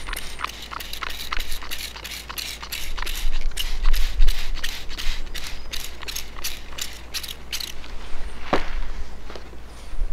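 Trigger spray bottle squirting water onto a painting in rapid squeezes, about three to four short spritzes a second, which stop about seven and a half seconds in. A single sharp click follows about a second later.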